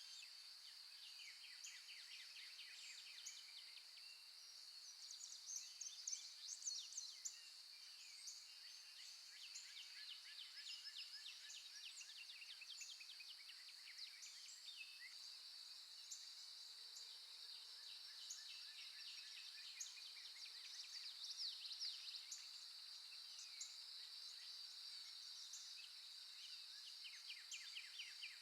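Faint nature recording of small birds chirping and trilling in quick runs, over a steady high-pitched hum.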